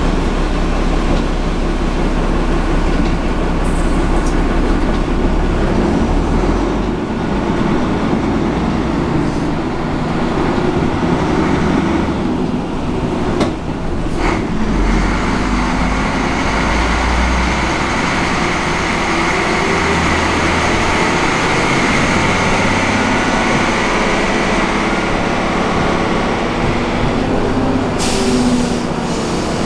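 Fiat 418 AC bus's diesel engine and drivetrain running under way, heard from inside the cabin, with road noise. A high whine comes in about halfway through, just after a couple of sharp knocks.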